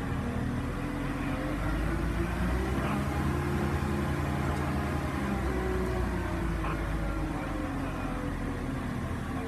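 Mobile crane's diesel engine revving up under load as it hoists a 4-tonne forklift, holding high revs for several seconds, then easing back down near the end.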